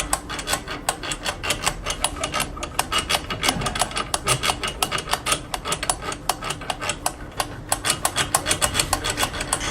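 Rapid, irregular metallic clicking and rattling, several sharp clicks a second, over a faint low steady hum.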